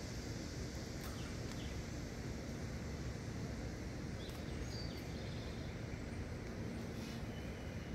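Steady outdoor background with a constant low rumble, a few faint clicks and one short high bird chirp about halfway through.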